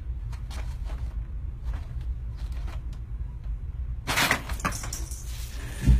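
Steady low hum with a few faint clicks, then a burst of rustling and scraping about four seconds in and a dull thump near the end.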